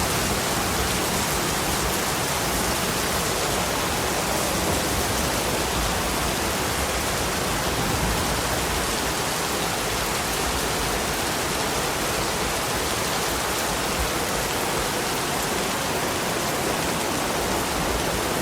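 Steady rain falling in a yard, an even hiss of many drops with no single drops standing out.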